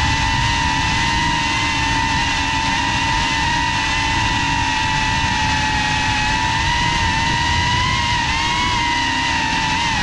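Geprc FPV quadcopter's brushless motors and propellers whining steadily in flight, over a rough low rush of air. The pitch wavers slightly near the end.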